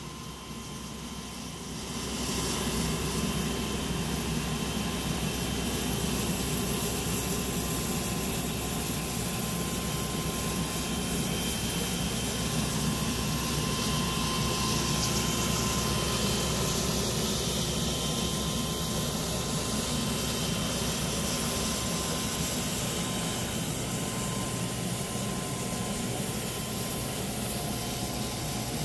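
Nilfisk Advance ES400 XLP self-contained carpet extractor running steadily as it cleans carpet: the vacuum motor's hiss with a thin steady whine, getting louder about two seconds in and then holding.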